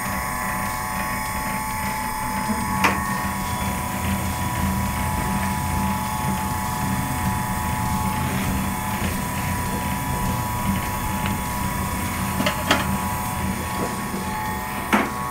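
Soba noodle-making machine running as a sheet of buckwheat dough feeds through its rollers and cutter: a steady motor hum and whine, with a few sharp clicks along the way.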